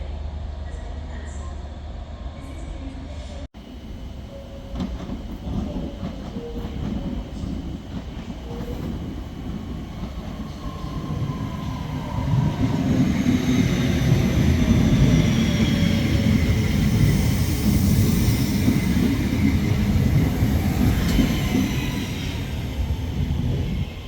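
A train passing on the railway: wheel and rail noise builds up and is at its loudest through the second half, with faint high tones sliding down in pitch over it. A low steady hum is heard for the first few seconds.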